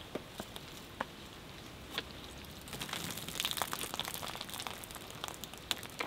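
Cloth rustling as a flannel shirt is handled and buttoned, with a denser patch of crinkling about three seconds in and scattered light ticks.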